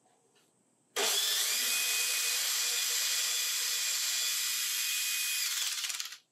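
Cordless drill driver with a small twist bit running steadily, boring a screw pilot hole into a wooden door frame beside a concealed-hinge cup bore. It starts suddenly about a second in with a steady motor whine and winds down just before the end.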